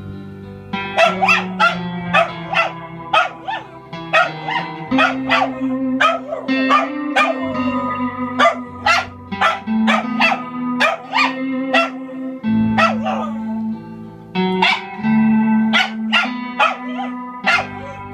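A small dog barks and yips over and over, about two or three times a second, while an electric guitar plays sustained chords through a Vox amplifier. The chords change every few seconds.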